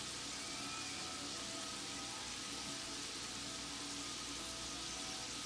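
Hot frying grease sizzling steadily around flour-coated mushrooms.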